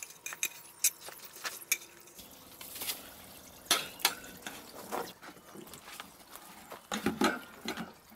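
Scattered clicks, clinks and knocks as a wire metal plant stand is set down on tiles and a plastic tub is lowered onto it, with a heavier pair of knocks about seven seconds in.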